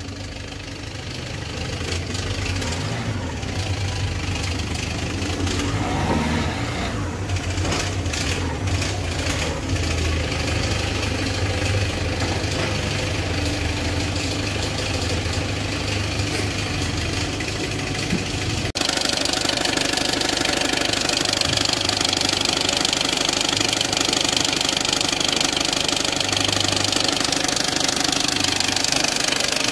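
Peugeot 206 1.4 HDi four-cylinder diesel engine idling with a loud knocking rattle from a damaged crankshaft pulley. About two-thirds of the way through, the sound abruptly turns brighter and more rattly.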